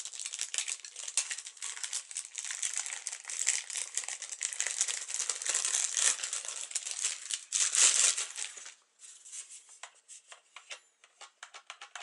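Clear plastic bag crinkling as a drone's radio transmitter is pulled out of it, loudest about eight seconds in. After that it thins to a few scattered crinkles and clicks.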